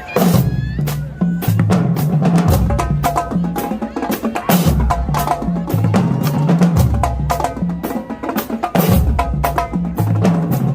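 A high school marching drumline playing a cadence. Rapid, sharp snare and rim hits run over tuned bass drums that step up and down through several pitches.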